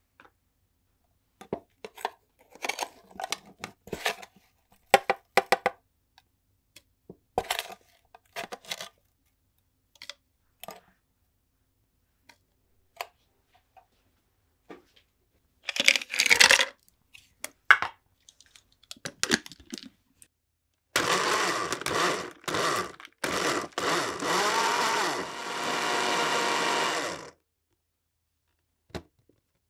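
Small electric blender running for about six seconds, puréeing kiwi: a few short bursts, then one steady run that cuts off. Before it, a scatter of light clinks and taps as ingredients go into the blender jar.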